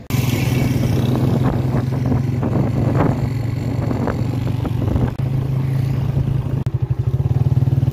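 A new Honda CG 125's single-cylinder four-stroke engine running steadily while the motorcycle is ridden at low speed. Its exhaust pulses become more distinct near the end.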